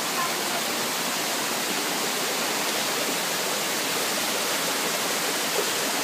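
Small mountain waterfall: spring water cascading over mossy rock and splashing onto the stones below, a steady rushing.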